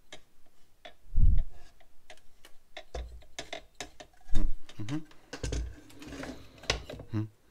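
Plastic housing and loose parts of a partly dismantled electric wall chaser clicking and rattling as it is handled and turned over, with a few dull knocks, the loudest about four seconds in.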